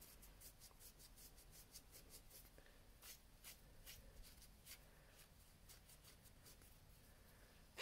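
Faint, quick strokes of a cotton pad rubbing over fingernails, wiping off nail polish strips with remover.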